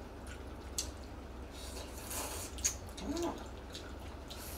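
People eating jjamppong noodles: soft slurps, wet mouth smacks and small clicks of chewing, with a short noisy slurp about two seconds in and a brief murmur just after three seconds, over a faint low hum.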